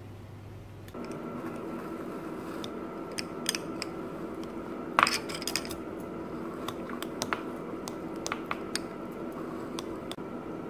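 Metal wire masher clinking and tapping against a glass beaker while mashing soft red fruit: irregular sharp clicks with soft squishing, the loudest clink about five seconds in, over a steady background hum.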